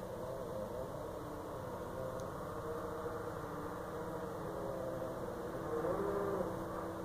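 Distant, unexplained drawn-out wavering tones over a steady background hum, of the kind posted as "sky trumpets". A louder tone bends up and down about six seconds in.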